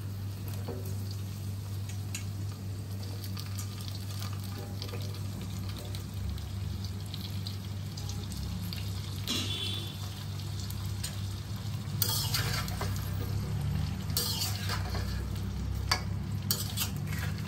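Cut hog plum pieces frying in hot mustard oil in a steel wok, the oil sizzling steadily over a low hum. From about twelve seconds in, a metal spatula scrapes and clatters against the wok as the pieces are stirred.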